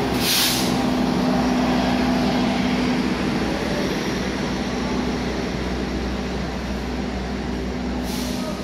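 Steady drone and low hum of idling diesel train engines, fading slightly, with a short hiss about half a second in and another near the end.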